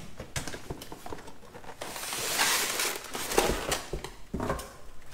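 A cardboard box being opened and its contents handled: scattered knocks and rustling, with one longer rasping noise of cardboard or packing about two seconds in.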